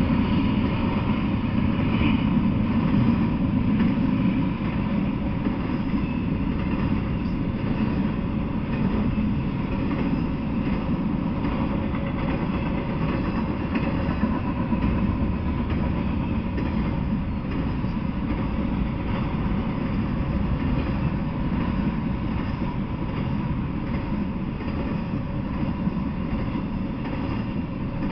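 Double-stack intermodal freight train cars rolling past: a steady, low noise of wheels on rail that goes on without a break.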